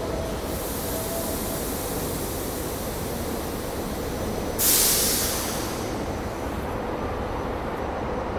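SEPTA Silverliner IV electric railcar standing at the platform with a steady hum and high hiss, then a sudden loud burst of air about halfway through that fades over about a second. Near the end the train starts to pull away.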